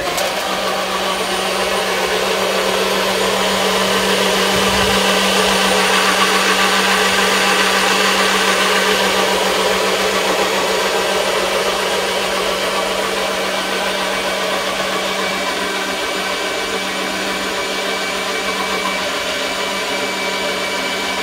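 NutriBullet personal blender running without a break, its cup pressed down onto the motor base, blending hemp-seed milk. It gives a steady motor hum under a loud whirring that starts suddenly and cuts off about twenty-one seconds later.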